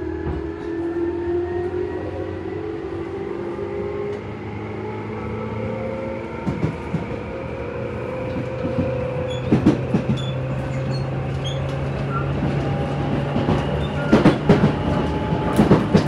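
Ride noise inside a Tobu 10030 series electric train car: the traction motors' whine rises slowly in pitch as the train gathers speed, then holds steady over a low rumble. From about halfway in, groups of sharp clacks come as the wheels pass over rail joints, most often near the end.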